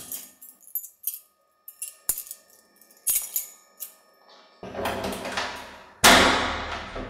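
A bunch of metal keys jingling and clinking in the hand, in a string of short bright clicks, while a door lock is worked. About six seconds in comes a sudden loud crash that dies away over about a second.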